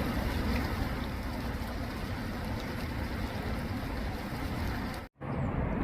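Steady rushing outdoor background noise with no clear rhythm or tone, which drops out abruptly for a moment about five seconds in.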